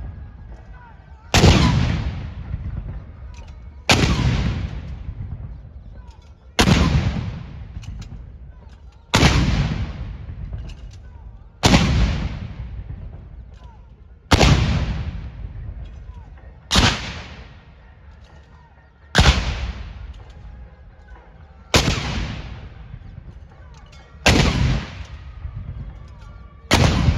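Artillery field guns firing a 21-gun salute, one round at a time: eleven sharp booms about every two and a half seconds, each followed by a long fading rumble.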